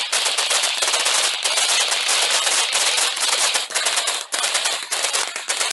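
Sustained automatic gunfire from several weapons, including a belt-fed machine gun: rapid shots overlap into an almost unbroken stream, with two short lulls near the end. It cuts off abruptly.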